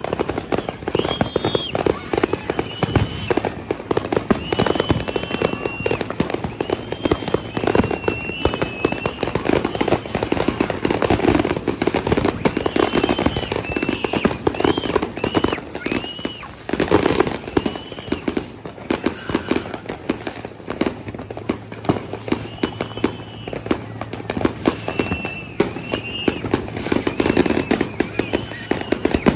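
Fireworks and firecrackers going off without a break: dense crackling and popping, laced with many short high whistles that rise and then fall in pitch.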